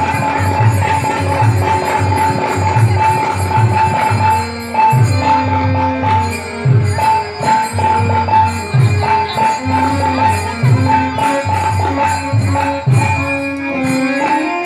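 Bengali devotional folk music: jingling hand percussion and a deep drum keeping a steady beat of about one stroke a second, under a held high note and a stepping melody line.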